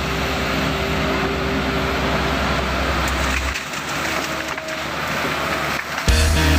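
Diesel engine of a Hitachi 130 excavator running under load as it works, with background music over it; the music's deep bass drops out a little past halfway and comes back just before the end.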